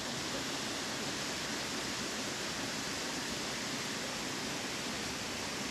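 Steady, even rush of falling water from a waterfall pouring into a river pool.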